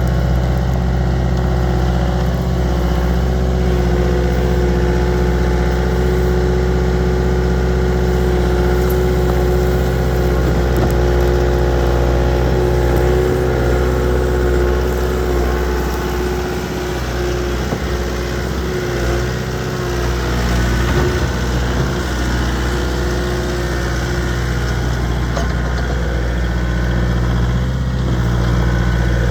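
The diesel engine of a 2010 Bobcat S300 skid steer running steadily at idle, with its low note dipping briefly about midway.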